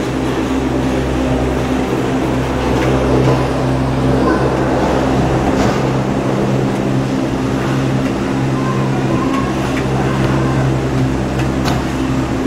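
Poma detachable gondola station machinery running: a steady hum with several low, even tones over a rumble, from the rubber-tyred wheels and drive carrying a cabin's grip along the station rail.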